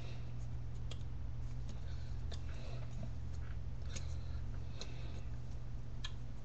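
Steady low electrical hum with a few scattered soft clicks and taps, about five, as hands move and touch while signing.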